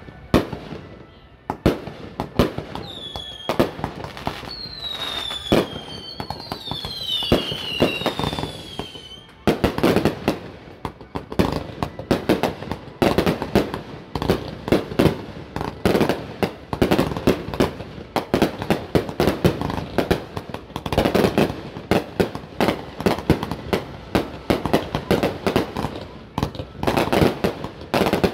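Aerial fireworks display. For the first third there are scattered bangs and several high whistles that fall in pitch. From about a third of the way in comes a dense barrage of rapid bangs and crackling.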